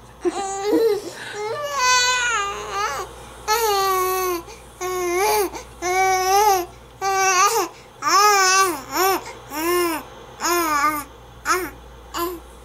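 Baby babbling: a string of short, high-pitched vocal sounds, each arching up and down in pitch, with brief gaps between them.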